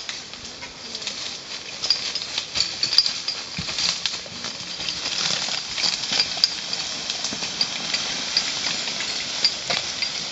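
A horse dragging logs on a small wheeled logging trailer over woodland floor: crackling and rustling of leaf litter and twigs, with many short clicks and knocks throughout.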